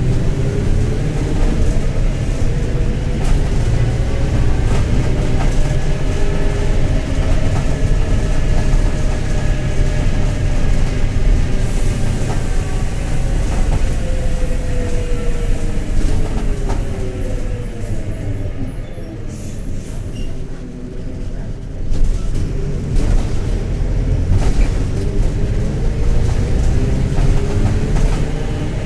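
Mercedes-Benz OF-1721 BlueTec 5 bus's six-cylinder diesel engine pulling and then easing off, its pitch rising and falling twice. A low rumble from a worn, rumbling bearing runs under it, along with body rattles and knocks. It drops lower about two-thirds of the way through, then picks up again sharply.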